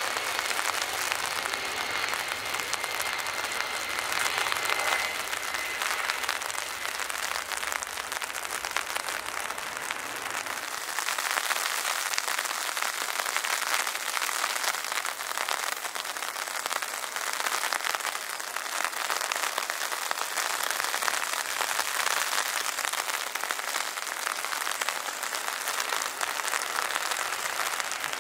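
Heavy rain hissing steadily, with the high whine of a passing jet airliner's engines over it for the first few seconds. About eleven seconds in the rain hiss turns brighter and a little louder.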